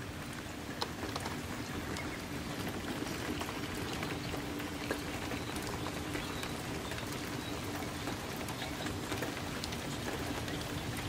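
Steady rain falling on a wooden deck, a constant hiss of rainfall with many small, sharp drop ticks scattered through it.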